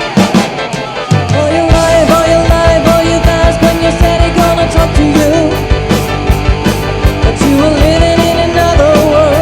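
A band playing rock-style party music with drums, bass and a lead vocal line. A new song starts at the beginning, and the bass and full band come in about a second in, with a steady drum beat.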